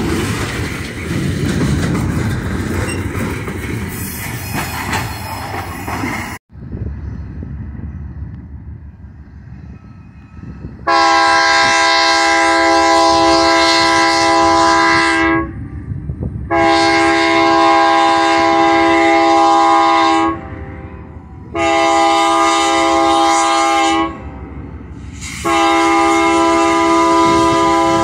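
Hopper cars of an ore train rolling past with wheel clatter. After a cut, an ex-Santa Fe GE C44-9W locomotive's air horn sounds the grade-crossing signal as it approaches: long, long, short, long, a chord of several tones in each blast.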